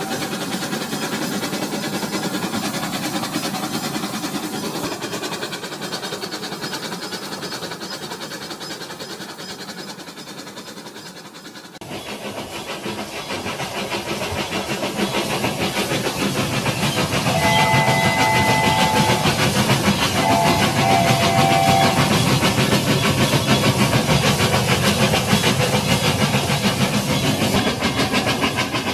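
Rail King toy train running, with a steady hissing steam-chuff sound and a fast even ticking. A whistle sounds twice in the second half.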